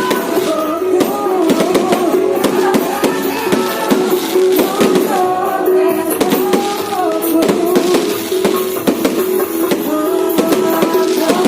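Loud music with a held tone and a wandering melody, over many sharp pops and crackles of fireworks going off.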